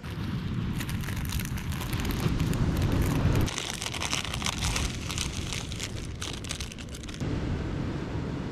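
Low rumble of wind on the microphone, then for a few seconds a crackling, hissing sound at a saucepan of instant noodles cooking on glowing campfire coals, then the wind rumble again.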